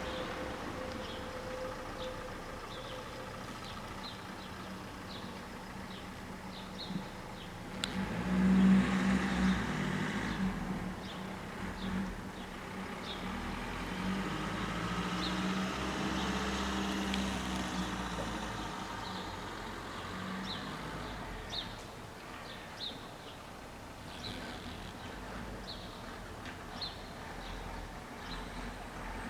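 A motor vehicle passing, with its engine hum loudest about eight to ten seconds in. Short, high chirps repeat about once a second throughout.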